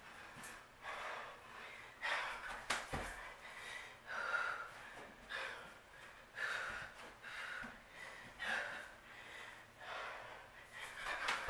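A woman breathing hard and rhythmically during a high-intensity bodyweight workout: puffing exhalations about once a second, the breathing of someone out of breath near the end of a set. One sharp knock about three seconds in.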